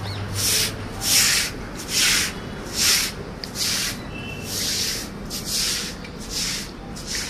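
Broom sweeping water across a wet tiled roof floor, a swish with each stroke at about one stroke a second, pushing out the mud.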